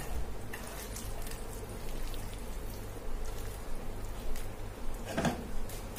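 Raw lamb pieces in a wet marinade of grated onion and tomato being turned over by hand on a plate: soft, irregular wet squishing and patting. A steady low hum runs underneath.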